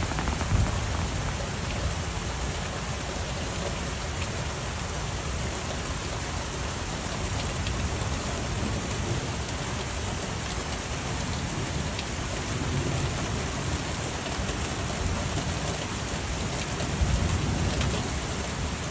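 Steady rain during a storm, with a low rumble underneath; the level rises slightly near the end.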